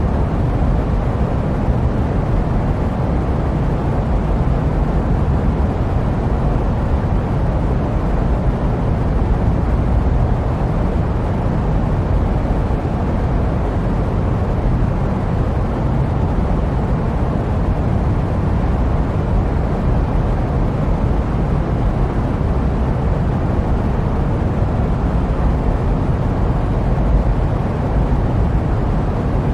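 Steady jet airplane noise: an even, deep rumbling hiss, heaviest in the bass, with no changes.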